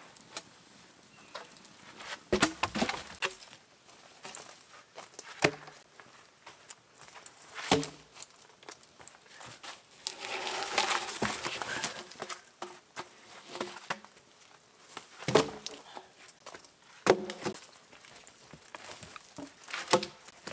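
A dog digging in loose forest soil, scratching and scattering dirt, with a denser burst of scratching about ten seconds in. Sharp wooden knocks come every few seconds as logs are shifted and set down.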